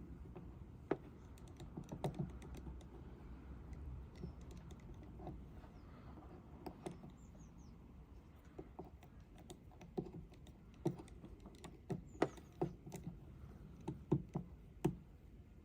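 Irregular light clicks and taps of tools and hard plastic being handled while plastic-welding a car headlamp casing, scattered through the stretch over a faint low hum.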